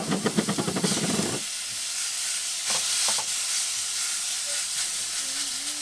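Beef burger patties sizzling in a hot frying pan on a portable gas stove, with a loud run of rapid crackling in the first second and a half and a few more crackles about three seconds in.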